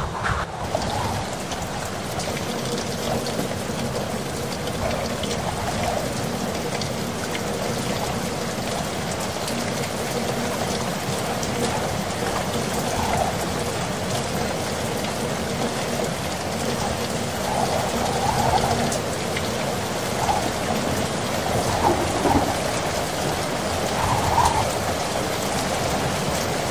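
Heavy wind-driven rainstorm: a dense, steady rush of downpour, swelling louder a few times in the second half.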